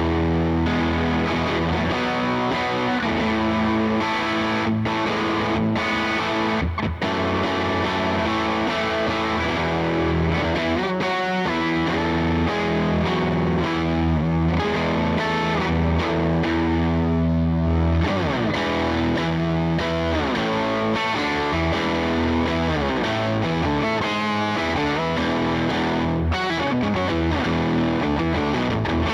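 Vola JZ electric guitar played through a Neural DSP Quad Cortex on its Fender amp model, with a distorted tone and effects: sustained notes and chords ringing over one another, with pitch glides here and there.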